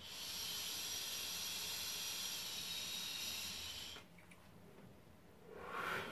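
A Jomo Tech Lite 40 vape with a freshly rebuilt coil head is test-fired: about four seconds of steady hissing as air is drawn through the tank with its airflow control fully open. Near the end comes a breathy exhale of the vapour.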